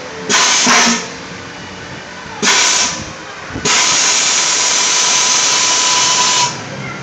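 Rushing hiss of air from a foam-ball play cage's air-powered ball blowers, in three blasts: two short ones under a second each, then one of about three seconds, with a steady whistling tone through them.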